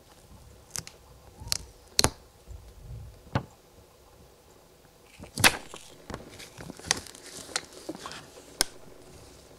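Paper leaflet handled and its pages turned by a gloved hand: a few sharp crinkles and taps, then a denser burst of paper rustling and crackling from about five seconds in.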